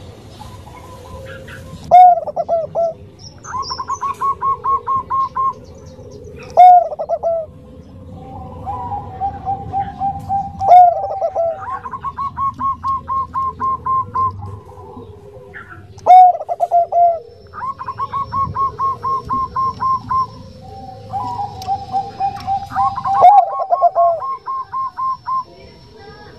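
Bangkok-strain zebra dove (perkutut) singing its cooing song over and over, about five phrases several seconds apart. Each phrase opens with one loud, bending note, followed by a quick run of short, evenly spaced coos.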